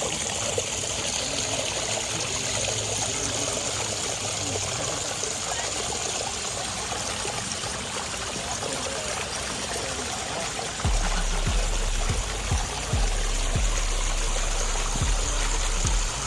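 Backyard pond waterfall, water splashing and trickling steadily. About eleven seconds in, a low buffeting rumble with short thumps joins it.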